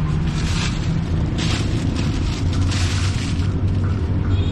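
Thin plastic carrier bag crinkling in three short bursts as it is handled around tied bags of drink, over a steady low rumble.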